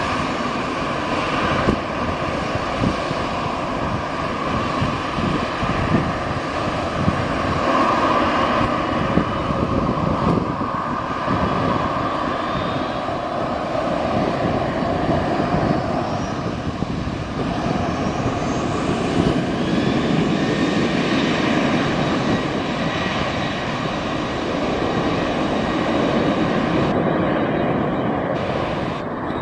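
Boeing 737-800's CFM56-7B jet engines running at takeoff, a steady loud engine noise with faint high whines rising in pitch.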